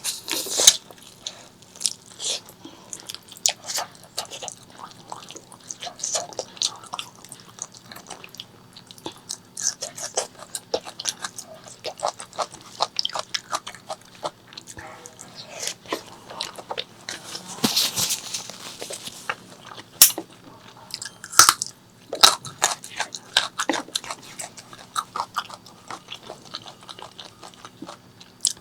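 Close-miked eating sounds of pork leg curry with rice: steady chewing and biting, with many irregular wet mouth clicks and smacks.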